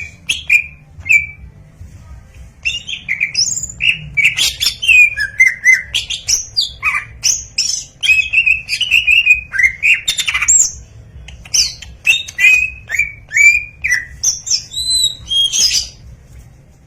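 Green leafbird (cucak hijau) singing a fast, varied song of whistled, chirping and squawky notes, with a short pause about a second in; the song stops shortly before the end.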